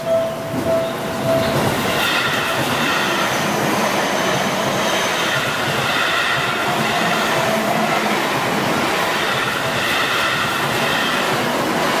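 Level-crossing warning bell pulsing for about the first second and a half. A Seibu 30000-series electric train then passes close by over the crossing, its wheels rolling on the rails and squealing in waves.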